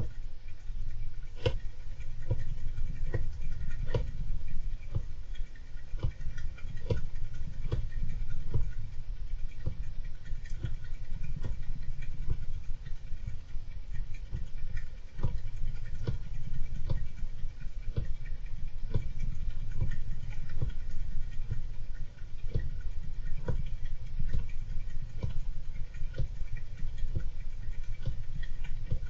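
Golden hamster scrabbling and scratching about, with irregular sharp clicks and taps over a continuous low rumble.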